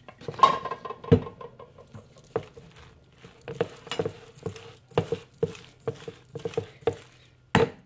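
Wooden spoon stirring flour into a crumbly seitan mixture in a metal mixing bowl: irregular scraping and knocking of the spoon against the bowl. There is a sharper knock about a second in, and the loudest pair of knocks comes near the end.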